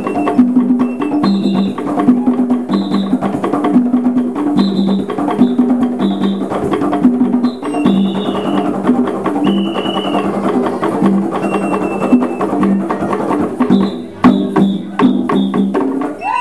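East African hand drums played live by an ensemble in a fast, steady rhythm, with two low drum pitches alternating under sharp, clicky strokes and short high tones above. The drumming stops just before the end.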